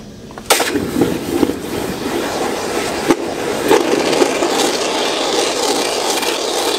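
Freshly cast hot brass quenched in a tub of water: a loud hissing sizzle with crackling and popping that starts suddenly about half a second in and keeps going.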